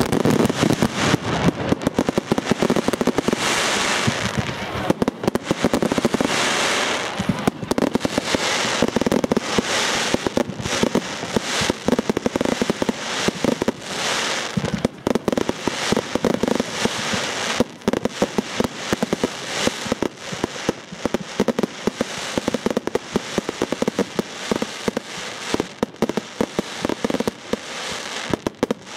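A large firework display going off: rapid, continuous cracks and bangs of bursting shells, with crackling and hissing showers.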